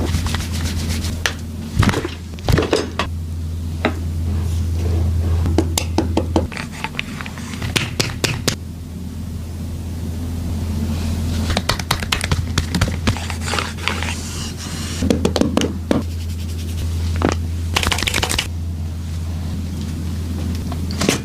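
Chiropractic back adjustment: sharp clicks and cracks of joints being manipulated, two loud ones about two seconds in, among rubbing and scraping of hands and clothing on the treatment table, over a steady low hum.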